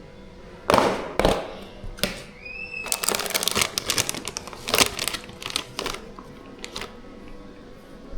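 A quick, irregular run of sharp clicks, taps and knocks of small hard objects being handled, with two short rising squeaks about two and a half seconds in.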